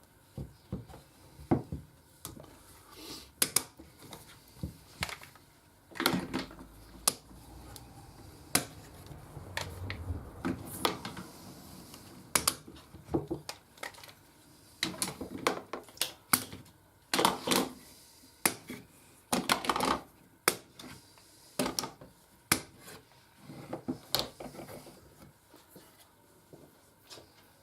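Clamps being loosened and taken off a glued-up guitar neck: irregular knocks, clicks and clatter of the clamps being handled and set down, with some scraping and handling in between.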